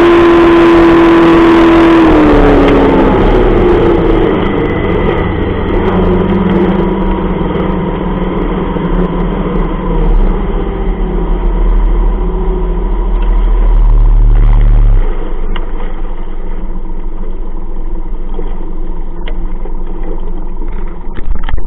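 40 hp Mercury outboard motor running fast with water rushing past the lower unit, then throttled back about two to three seconds in, its pitch dropping as the rush of water fades. It runs on at a lower speed, stepping down again about fifteen seconds in.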